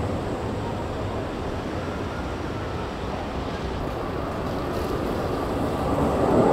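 Steady low rumble of city street traffic, growing louder over the last few seconds as a tram approaches along the rails.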